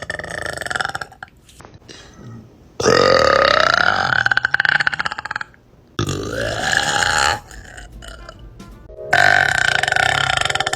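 Young women burping: a run of long, loud, drawn-out burps, one at a time. One burp fades out in the first second, and three more follow about 3, 6 and 9 seconds in, each a couple of seconds long and cut off abruptly.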